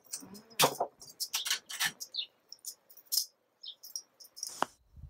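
A bottle of cava being opened by hand: foil and wire cage rattling and clicking as they come off, and the cork worked out, with a single sharp sound and a brief hiss near the end.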